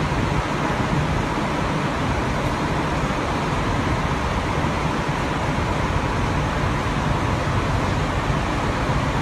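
Steady cabin noise inside a coach bus: its engine and ventilation fans running with an even rumble and hiss and a faint steady hum.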